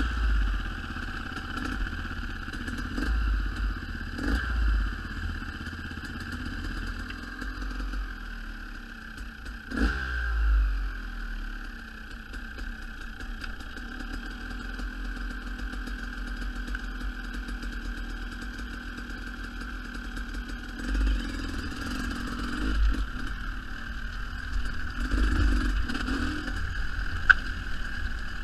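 Dirt bike engines running slowly, with a few short throttle blips; one rev falls away about ten seconds in, and the sound grows busier and louder near the end as the bike rides off.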